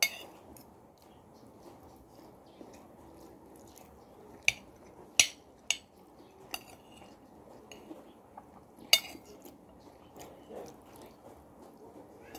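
Metal spoon and fork clinking and scraping against a plate while eating, a handful of separate sharp clinks, the loudest around five seconds and nine seconds in.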